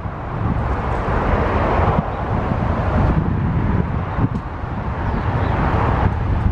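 Wind rumbling on the microphone, with two swells of passing road traffic.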